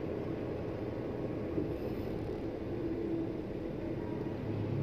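Steady low hum inside a parked car's cabin: the engine idling with the air conditioning running.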